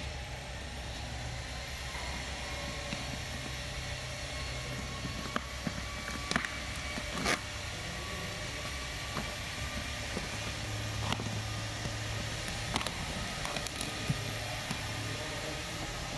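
Steady low hum of a PVC-sheet pattern cutting plotter's machinery running, with a few light clicks scattered through it.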